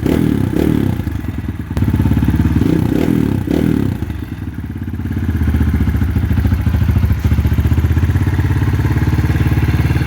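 Kawasaki KLX150 dirt bike's single-cylinder four-stroke engine running through an aftermarket slip-on exhaust, revved in quick blips in the first few seconds, dropping back, then running steadily.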